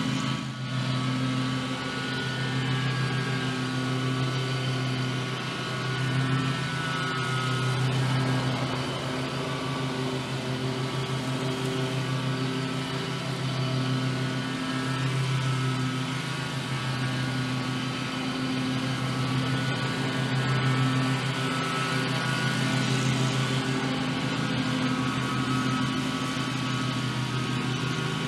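Riding lawn mower's engine running steadily under mowing load: a constant engine drone that swells and eases slightly as the mower moves across the lawn.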